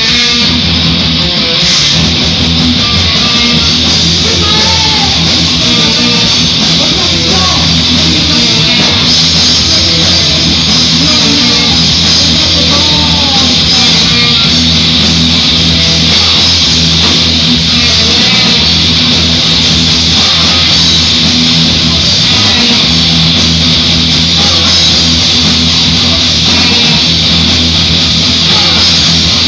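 Live rock band playing loudly: electric guitars, bass guitar and drums.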